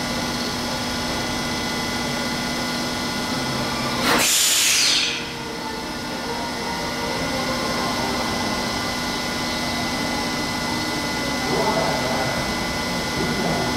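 Tokyo Metro 05 series (N05) train's electrical equipment giving a steady, unchanging whine of several tones. About four seconds in comes a loud hiss of about a second.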